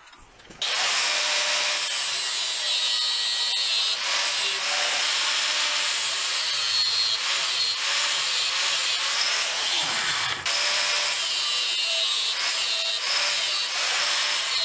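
Angle grinder with a flap disc spinning up about half a second in and then grinding steel steadily, the disc worked against the joint between the twisted rebar and the flat-bar upright, with small dips as the pressure changes.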